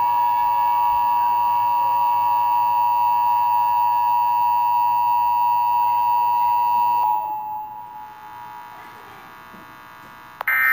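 Emergency Alert System attention signal: a steady, loud electronic alarm of two close-pitched tones sounding together. It runs about seven seconds, then fades out. Just before the end a short burst of higher, screeching digital data tones begins.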